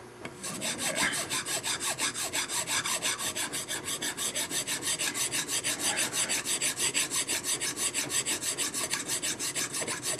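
Flat hand file rasping back and forth across a thin N scale model rail clamped in a vise, in quick, even strokes several times a second, starting about half a second in. The rail's head and base are being filed down to shape a turnout rail.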